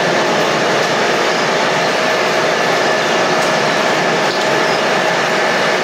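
Jet engines of an Airbus A330 running steadily: an even, loud rush of turbine noise with a steady whine held over it.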